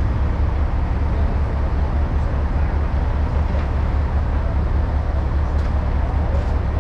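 Diesel engines of heavy equipment running steadily, a deep, even low rumble.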